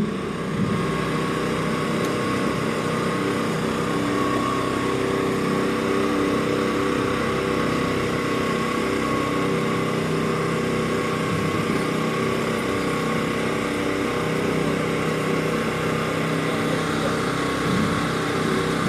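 A small engine running steadily at an even idle.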